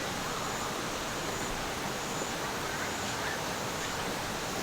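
Steady rushing of a mountain valley stream, an even wash of flowing water.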